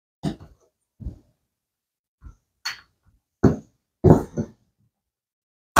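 A series of short, irregular thuds and knocks, about eight in all, some in quick pairs, from handling bread dough and a baking pan.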